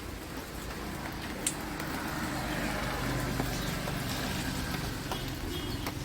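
A road vehicle passing by, its noise swelling to a peak about halfway through and then fading, with a sharp click about one and a half seconds in.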